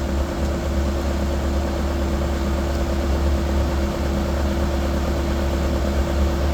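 Bobcat A300 skid steer's diesel engine running steadily, with a constant hum and no change in speed.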